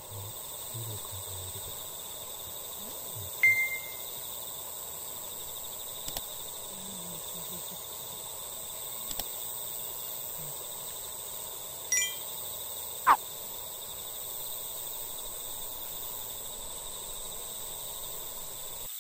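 Dusk outdoor ambience: a steady, high-pitched chorus of insects, with a few short, sharp high calls standing out, the loudest about thirteen seconds in.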